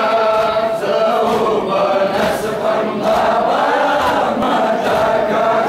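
Crowd of men chanting a Muharram lament (noha) together in mourning, many voices holding the same sung line. A regular slapping beat of about two strokes a second runs under the chant: hands beating chests in matam.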